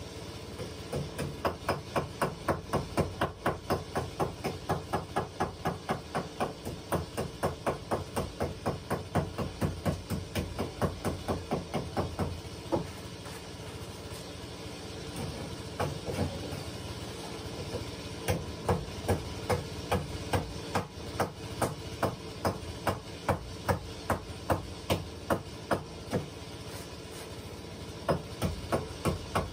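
Hatchet used as a hammer, striking wooden floor planks in quick runs of blows, about three a second. There is one long run, a pause of a few seconds, then two more runs.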